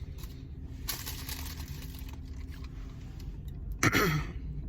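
Steady low rumble of a vehicle heard from inside the cabin, with a brief falling hummed vocal sound about four seconds in.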